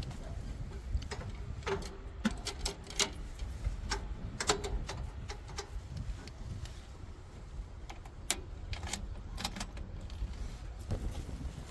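A heavy machine's engine rumbling low and steady, with scattered sharp metallic clanks and rattles over it.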